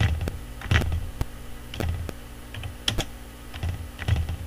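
Computer keyboard keys pressed one at a time: about eight irregular taps and clicks spaced unevenly, with a steady low hum underneath.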